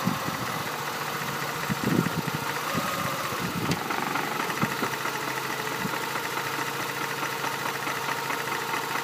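Mazda RX-8's rotary engine idling, with a few short knocks, the strongest about two seconds in: the knock that comes when a gear is engaged.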